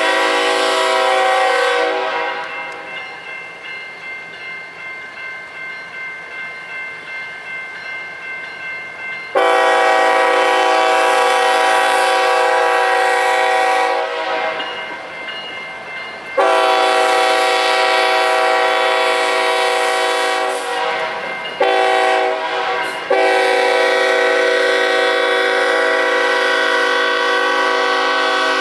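Diesel freight locomotive's multi-chime air horn sounding the long, long, short, long grade-crossing signal, after an earlier blast that ends about two seconds in. Between the blasts the autorack cars rumble past, their wheels clicking over rail joints in a steady rhythm.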